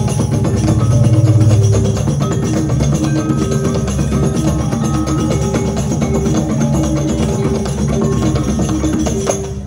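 Balinese gong kebyar gamelan playing a fast, dense passage of interlocking bronze metallophone strokes over drums and low gong tones. The ensemble cuts off with a final accent near the end.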